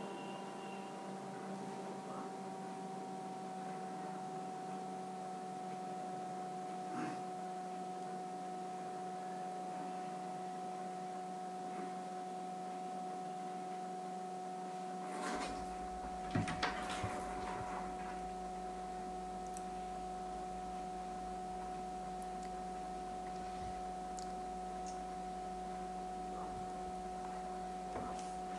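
A steady hum made of several held tones, with a few short knocks about fifteen to eighteen seconds in.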